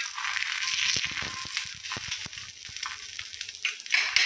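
An egg omelette frying in oil on a flat griddle (tawa): a steady sizzle with scattered small crackles and pops.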